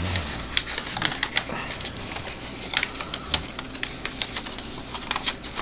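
A sheet of paper being folded and creased by hand: irregular crinkling clicks and rustles as it is pressed into shape.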